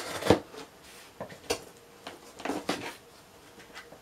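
Smith & Wesson Cutting Horse knife slicing the packing tape along a cardboard box's seam: irregular short scrapes and clicks of blade on tape and cardboard, a sharp one just after the start and a cluster about two and a half seconds in.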